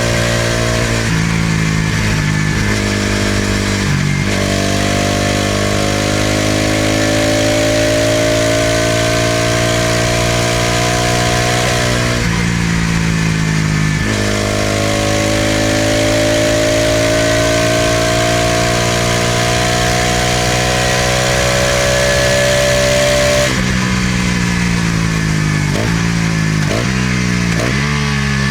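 Exhaust of a Bajaj Pulsar NS200's single-cylinder engine pulling through the gears on the move: the pitch climbs steadily, drops at each upshift, and climbs again over long pulls. Near the end the throttle is closed, followed by three quick throttle blips, with steady wind noise throughout.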